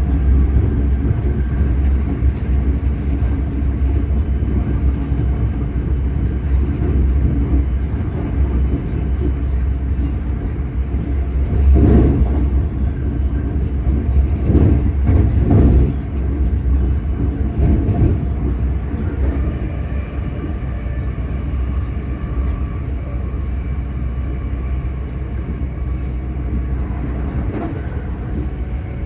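Class 385 electric multiple unit running, heard from inside the carriage: a steady low rumble with faint steady tones from the traction motors. A few short knocks come through about halfway, and the sound eases slowly toward the end.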